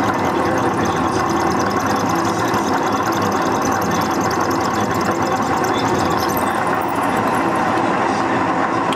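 Myford Rodney milling machine running steadily under power, a dense, even machine noise with no breaks.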